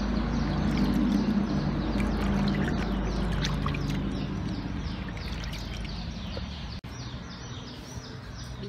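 Water sloshing and dripping in a plastic basin as pieces of raw fish are rinsed by hand and lifted out, cutting off abruptly near the end. Small birds chirp in the background.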